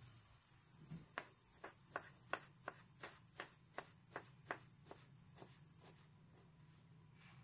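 Kitchen knife slicing a tomato on a wooden cutting board: a run of light taps, about three a second, as the blade meets the board with each slice. A faint steady high whine runs underneath.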